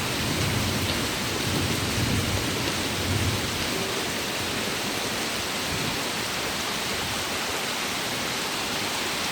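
Heavy rain falling steadily in a windstorm, a dense, even hiss. Low gusty rumbles come through in the first three seconds, then fade.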